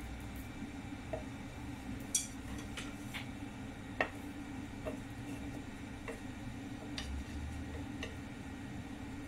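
Empty nonstick wok heating on the stove, its metal giving irregular sharp ticks about once a second over a steady low hum.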